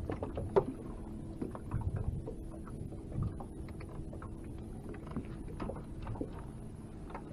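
Small ticks and clicks of fingers handling a jig and a plastic bait jar. Under them is a faint steady hum and the low sound of water lapping against the boat.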